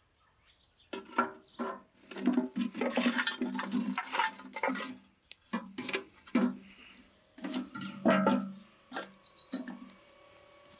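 Lumps of charcoal tipped from a metal pan into a steel brazier, clattering and clinking densely for a few seconds. After that, separate knocks and scrapes as metal tongs push the pieces into place.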